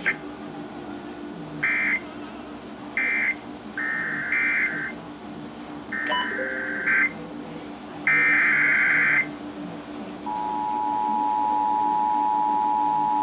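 Emergency Alert System SAME data tones over the radio. Short end-of-message data bursts come first, then three raspy header bursts of about a second each, a second apart, announcing the next alert. About ten seconds in, the steady two-tone 853/960 Hz EAS attention signal starts and holds, with a low hum underneath.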